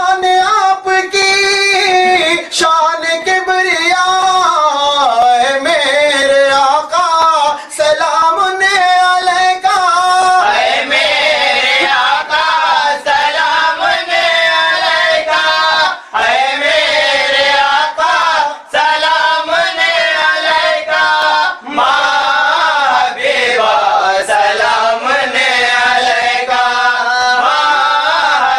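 Voices singing a devotional Islamic salam in chorus, a slow winding melody held on long notes.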